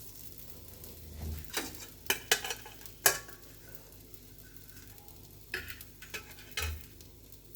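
Stuffed paratha frying in desi ghee on a hot tawa with a low sizzle, broken by several short sharp scrapes and knocks against the tawa as the paratha is turned and spread with ghee.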